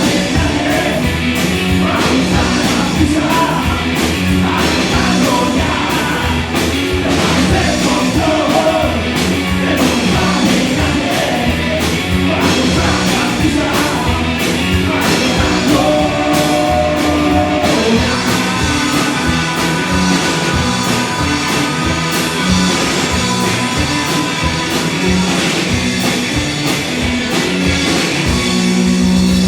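Four-piece rock and roll band playing live: electric lead and rhythm guitars, bass guitar and drum kit, loud with a steady driving beat.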